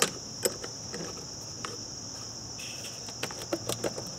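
Crickets trilling steadily, with a few sharp metallic clicks and taps from a 12 mm combination wrench working the battery hold-down nut.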